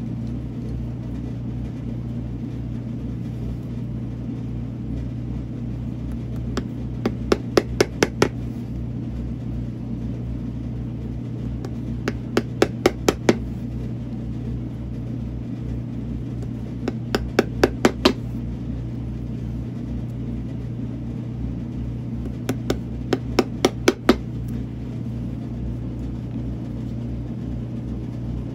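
Hammer tapping small wooden pegs into pre-punched holes in a boot's leather sole: four bursts of about six quick taps, several seconds apart, one burst for each peg driven. A steady low hum runs underneath.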